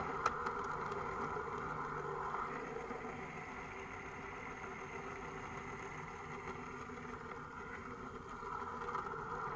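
Gauge 1 model train running along its track, a steady motor and wheel hum that dips a little in the middle and rises again near the end.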